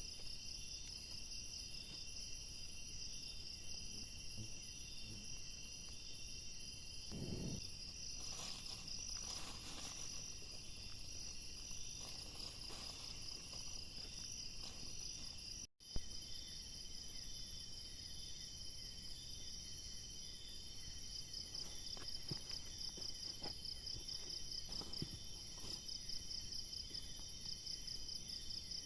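Insect chorus, with several steady high-pitched pulsing trills layered together. The trills break off for a moment about halfway through, then carry on.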